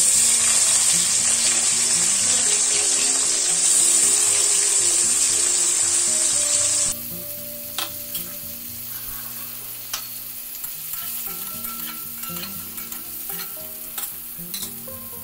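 Sliced onions sizzling in hot mustard oil in a metal kadai. The sizzle is loud at first and drops suddenly about seven seconds in to a quieter sizzle with scattered pops and crackles.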